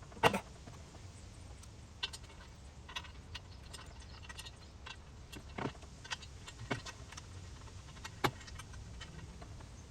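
Scattered metallic clinks and knocks from hand work on the canopy's crossbar and hardware, the loudest a sharp knock just after the start, over a steady low hum.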